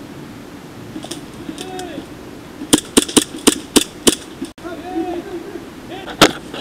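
Glock-style airsoft gas blowback pistol firing a quick string of about six shots, a few per second, then one more shot near the end.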